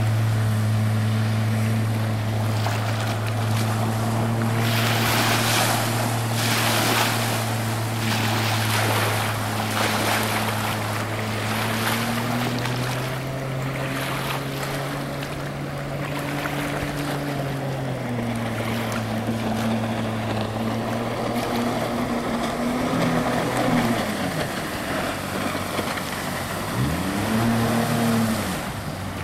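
Jet boat powered by a Sea-Doo 215 jet ski engine running at speed, a steady engine drone over the rush and spray of water. The pitch rises a little about midway and settles back. Near the end it rises and falls several times as the boat swings close by.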